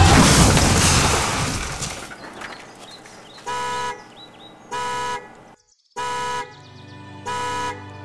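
A loud burst of noise fades away over the first two seconds. Then a car horn sounds in four short, even blasts about a second apart, as from the wrecked car after the crash.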